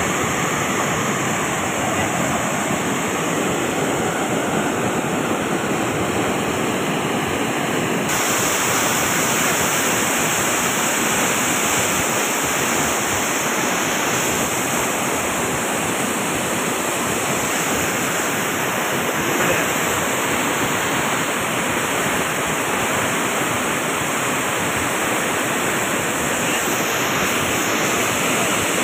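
Floodwater pouring over a concrete dam weir and churning at its foot: a steady, loud rush of water that gets a little brighter about eight seconds in.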